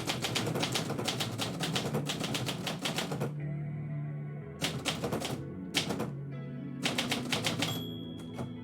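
Typing: runs of rapid keystrokes with short pauses between them, over background music with steady low notes.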